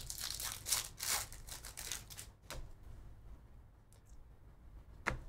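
Foil wrapper of a trading-card pack being torn open and crinkled, loudest in the first two seconds. It then fades to a few faint rustles and ticks as the cards are handled.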